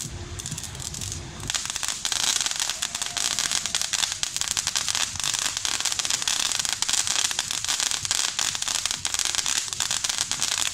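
Ground firework fountain spraying sparks with a dense, rapid crackle that swells sharply about a second and a half in.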